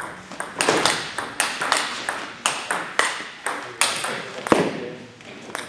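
Table tennis rally: the ball clicking sharply off the rackets and the table in quick alternation, about two to three hits a second, the run ending about four and a half seconds in.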